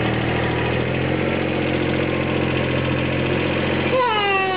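Kubota compact tractor's diesel engine running steadily at a low, even speed. About four seconds in, a voice calls out briefly with falling pitch over the engine.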